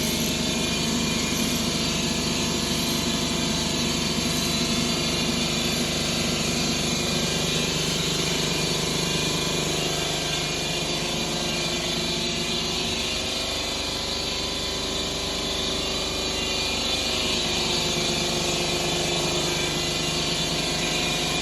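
An engine running steadily, its pitch shifting slightly about halfway through.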